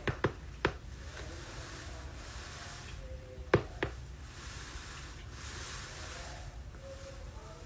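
Sharp pops of joints cracking: two quick pops near the start and two more about three and a half seconds in, over a faint steady hiss.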